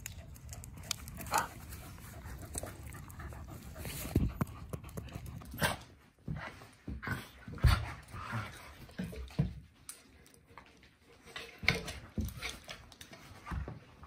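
Two dogs play-wrestling, panting, with irregular scuffling and mouthing noises.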